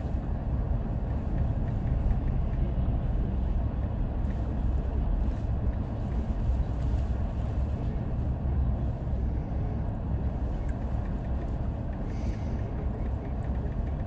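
Steady low rumble inside the cabin of a stopped car in a blizzard: the idling car with wind buffeting it.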